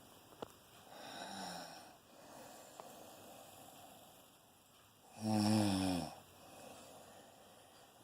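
Snoring: a soft, breathy snore about a second in, then one loud snore about five seconds in whose pitch drops as it ends, followed by softer breathing.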